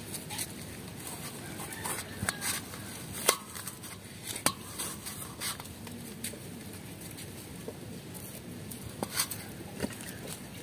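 A knife cutting raw jackfruit bulbs over a steel plate: scattered light clicks and taps over a faint steady hiss, the sharpest a few seconds in and again near the end.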